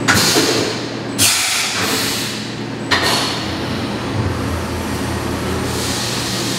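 CNC vertical milling machine starting its program: three sudden hissing bursts over about three seconds, over a steady machine hum. Near the end a steady hiss rises as coolant sprays onto the cutter.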